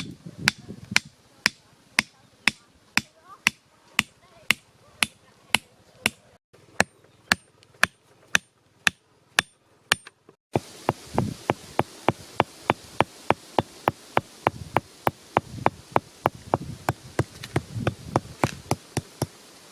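A long run of sharp, evenly spaced knocks, two to three a second, like a blade or tool striking wood. They break off briefly about ten seconds in and resume a little faster, with a few duller thuds among them.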